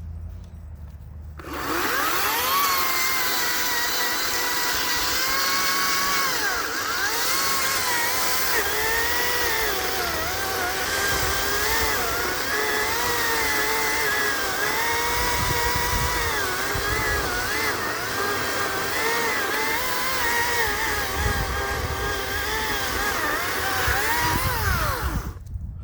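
Hart chainsaw starting up about a second and a half in and cutting through mesquite wood, its whine dipping in pitch and recovering again and again as the chain loads up in the cut, then stopping just before the end.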